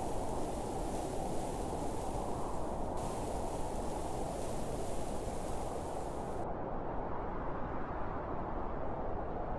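Steady wind: a low, even rushing with no distinct gusts.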